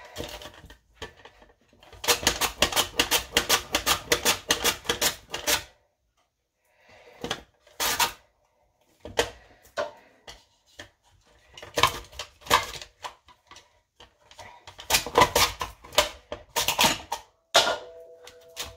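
Butternut squash being sliced on a handheld mandoline slicer: runs of quick scraping strokes, about five a second, as the squash is pushed back and forth over the blade, in several bursts with short pauses between them.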